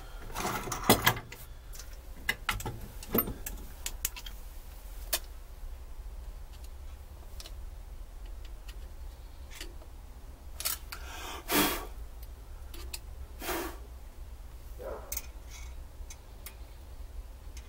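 Scattered small metallic clicks, taps and scrapes of a screwdriver and hands working at a Carter BBS carburetor's base, with a sharper knock about a second in and a longer scrape about two-thirds of the way through, over a steady low rumble.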